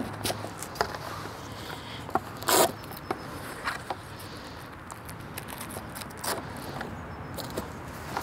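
Handling noise from fitting a seat bench to an inflatable boat: scattered clicks and knocks, with one short scrape about two and a half seconds in.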